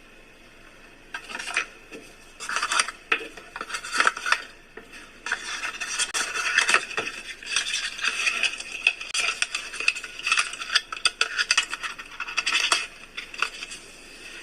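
Close handling of a small plastic gadget and its packaging: irregular rustling, scraping and sharp clicks, starting about a second in and going on in quick, uneven bursts.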